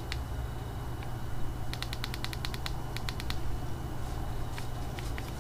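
Plastic D-pad and keys of a Nokia Surge clicking under a thumb during menu scrolling: a few single clicks, a quick run of about ten clicks in the middle, then two more near the end, over a steady low hum.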